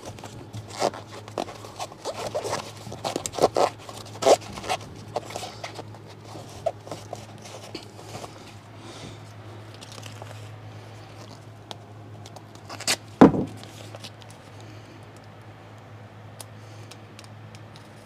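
Scraping, rubbing and clicking of Armaflex closed-cell foam pipe insulation being handled and pressed around a copper refrigerant line. A busy string of small sharp sounds at first thins out, with one louder knock about 13 seconds in.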